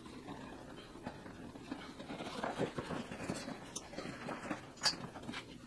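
Rustling and scraping of a soft motorcycle pannier bag and its nylon straps being pulled through a rack and snugged by hand, with a sharp click about five seconds in.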